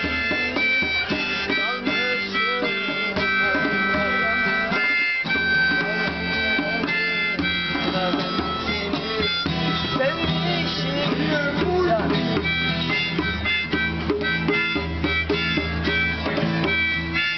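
Harmonica playing long held chords over a strummed acoustic guitar and a hand drum keeping the beat.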